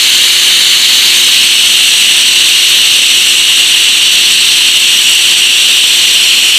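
TIG welding arc burning steadily, a loud even hiss, as the torch cup is walked back and forth along the pipe joint with filler wire fed in.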